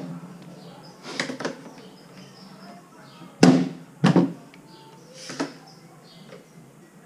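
Hard knocks and clacks of quick-release bar clamps being released and set down on a wooden workbench: a handful of separate impacts, the loudest about halfway through.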